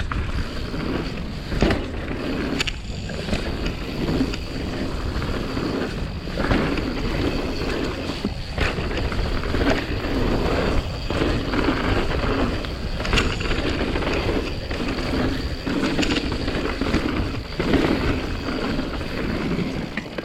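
Mountain bike ridden fast down a dirt trail: knobby tyres rolling and scrubbing over dirt in surges, with sharp knocks and rattles of the bike over bumps every few seconds, and wind buffeting the microphone.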